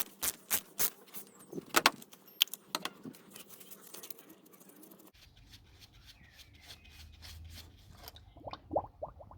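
Sharp metallic clicks and clinks from a ratchet turning an 84 mm cap wrench on an oil filter housing cap, loosening it. The clicks come about three a second at first, then sparser, with a quick cluster near the end.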